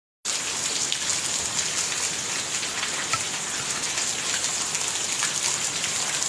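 Steady rain falling, a dense even hiss full of small drop ticks.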